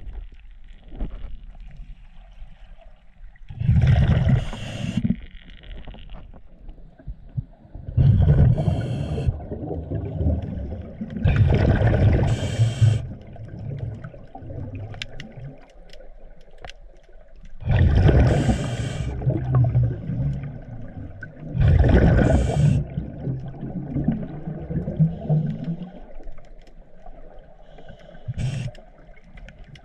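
A scuba diver's regulator heard underwater: bursts of bubbling exhaled breath, each a second or two long, about five of them spaced several seconds apart, over a low rumbling background.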